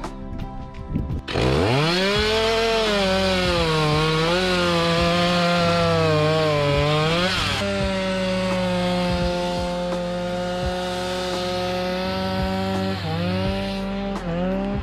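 A small gasoline engine on a cutting machine starts about a second in and revs up quickly. Its pitch wavers under load for a few seconds, then it runs at a steady speed, dropping briefly twice near the end.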